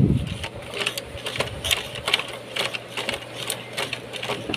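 Household Singer treadle sewing machine with no motor, turned by hand at the handwheel, stitching stretchy dry-fit cotton: its needle and feed clack unevenly, a few stitches a second.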